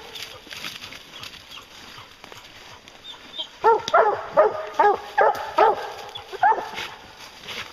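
Bear hounds barking treed at the foot of a tree holding a black bear: after a few quieter seconds, a quick run of about eight barks in the second half.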